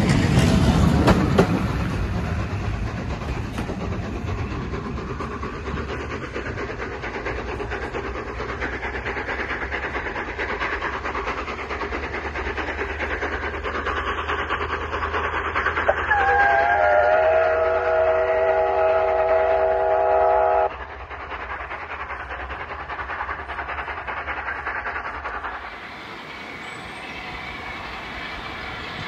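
The last coaches of a steam-hauled train rumble past and fade into the distance. About halfway through, the locomotive at its head, LNER A2 Pacific No. 60532 Blue Peter, sounds one long whistle of about four and a half seconds that cuts off sharply.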